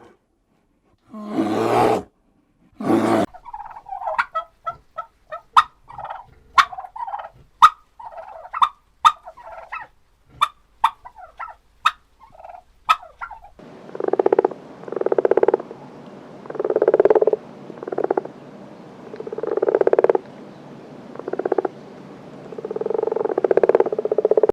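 A string of animal calls from several clips in a row: two short, harsh calls near the start; then a long run of quick, clicky calls; then, from about halfway through, about eight drawn-out calls, each lasting about a second.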